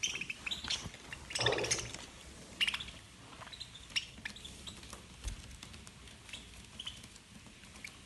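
Budgerigars squabbling over food: short harsh chirps and squawks, the loudest about one and a half seconds in, among small clicks of beaks pecking at broccoli.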